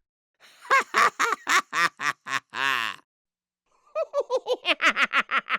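Two bursts of a man's laughter. The first is a run of 'ha-ha' pulses that ends on a drawn-out note; after a short pause comes a quicker run of pulses, falling in pitch.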